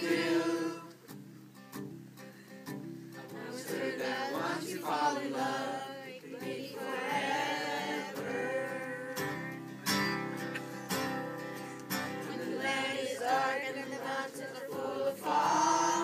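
A group of children singing a song together, accompanied by an acoustic guitar.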